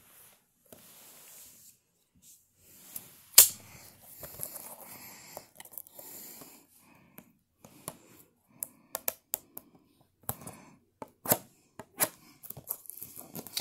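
Handling a plastic-wrapped trading card box and a folding knife: a sharp click about three seconds in, soft rustling, then a run of small clicks and taps as the knife blade works at the edge of the box's wrap.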